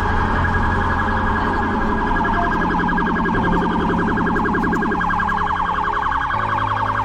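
Police siren sound effect in a fast, steady warble. Beneath it runs a low hum that shifts pitch a few times.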